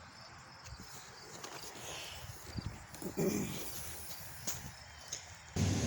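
Quiet outdoor garden ambience with faint rustling and scattered soft knocks. Just before the end, a steady engine drone sets in.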